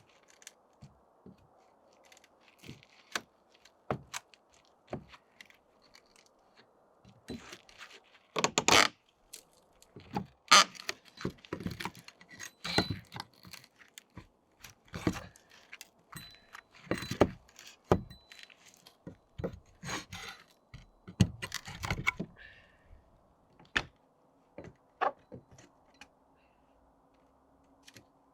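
Irregular clatter of hard objects being handled: many short knocks, clinks and thunks with some metallic jingling, heaviest through the middle of the stretch and sparse near the start and end.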